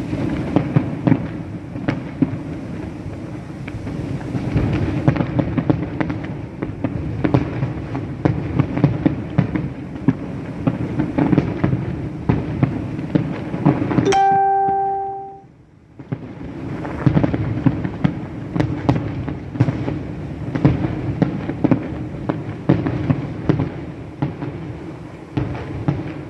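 Fireworks display: a dense, continuous run of bangs and crackling bursts. About halfway through, the bangs break off for a second or so under a brief steady tone, then resume.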